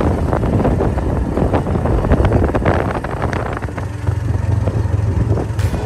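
A motor vehicle running on the move, with a steady low rumble and rattling, and wind buffeting the microphone.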